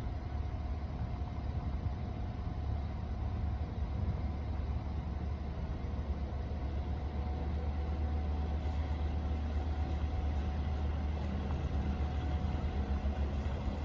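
Boat engine running slowly: a steady, pulsing low rumble that grows a little louder in the second half.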